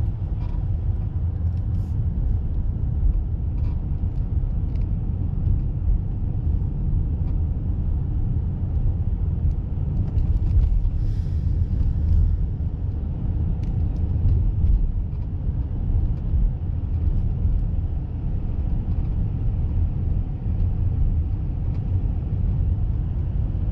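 Steady low rumble of a car driving at low speed, engine and tyre noise, with a few faint light clicks along the way.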